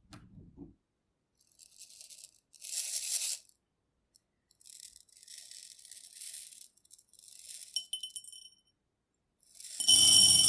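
Dry rice poured into a glass bowl in several separate pours: a hissing patter of grains on glass. The last and loudest pour, near the end, sets the glass bowl ringing with clear tones. A few soft, low knocks come at the very start.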